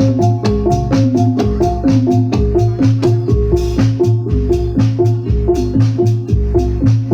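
Javanese gamelan playing: metallophones strike a quick, steady run of ringing notes over sharp drum-like strokes and recurring low sustained tones.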